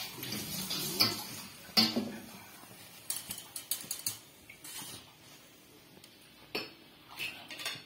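A metal fork clinking and scraping against a steel wok and a wire strainer basket as fried kuih are lifted out of the oil, with the sharpest clinks about one and two seconds in and scattered lighter taps after. Hot oil bubbles under the clinks in the first two seconds.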